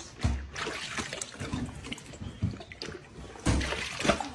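A large dog lapping water from a steel bowl, quick irregular sloppy laps that slosh and splash the water. Two dull thumps come through, one just after the start and one near the end.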